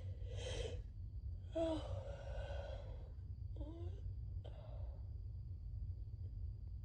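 A woman with a head cold making breathy gasps and sighs: a quick breath in, then a louder, longer voiced breath that starts suddenly about a second and a half in, then two short voiced catches of breath.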